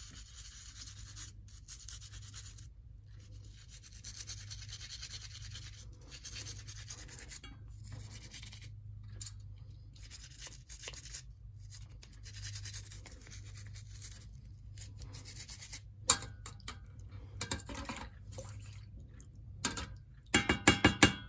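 A small brush scrubbing a model locomotive part in soapy water, in quick back-and-forth strokes with short pauses. A few sharp knocks near the end.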